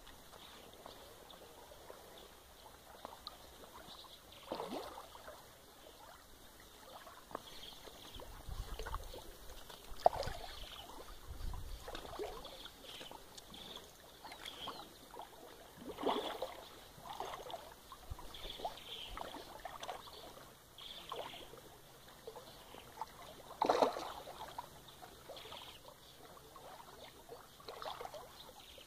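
Creek water sloshing and splashing in short, separate bursts every few seconds around a person wading in the stream, with a brief low rumble about a third of the way in.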